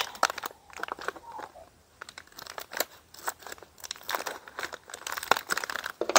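Foil pouch crinkling in the hands while scissors snip across its top to cut it open: an irregular scatter of crackles and sharp snips, thinning out briefly about two seconds in before picking up again.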